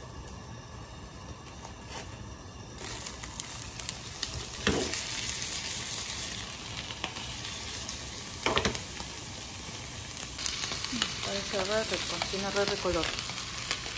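Small boiled potatoes and chopped greens sizzling in a frying pan. The sizzle starts about three seconds in and gets louder near the end, with a couple of short stirring scrapes.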